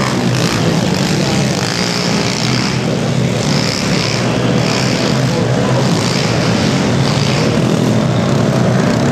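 Several 12-inch pit bike engines running hard together in a race, a steady loud buzz with no break, inside an arena.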